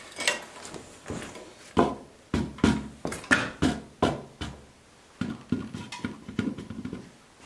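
A run of irregular wooden and metal knocks and clunks as heavy wooden blocks and a floor jack are worked under a forklift. There are about nine sharp knocks in the first four and a half seconds, then softer ones.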